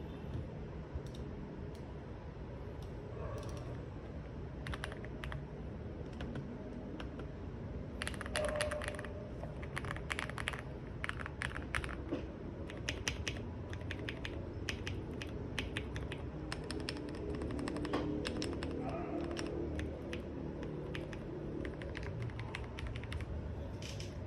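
Continuous typing on an RKM75 mechanical keyboard modded with Gateron Milky Yellow Pro linear switches and Akko SAL-profile keycaps: irregular keystroke clacks, with faster runs of keys here and there.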